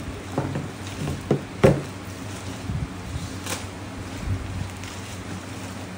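A few knocks and clunks from the sewing machine being handled out of its packing, the loudest about a second and a half in, over a steady low hum.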